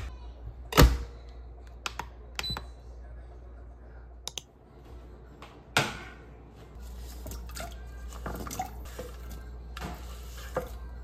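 Kitchen handling sounds: a sharp knock about a second in and a few lighter clicks, then a low steady hum starts with soft rustles and small knocks as diced sweet potato and onion slide off a wooden cutting board into a stainless steel saucepan.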